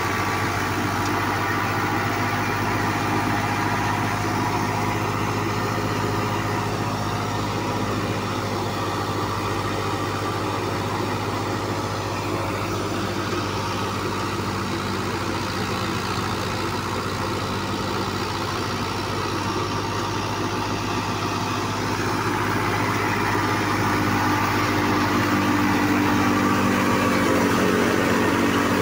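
Fiat 640 tractor's diesel engine running steadily at about 1600 rpm under load, driving a Shahbaz thresher through its PTO shaft, with the thresher's own running mixed in. Grows louder in the last few seconds.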